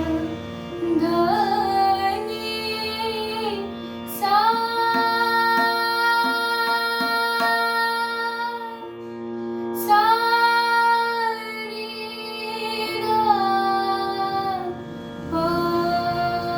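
Hindustani classical singing in Raag Yaman: a female voice holds long sustained notes over a steady drone, sliding up into each note, in the slow opening phrases of a bada khyal.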